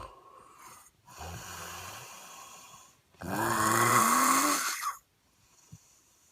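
Overweight man snoring heavily in his sleep: a quieter, rough breath about a second in, then a loud snore of nearly two seconds starting about three seconds in. After it the breathing falls quiet.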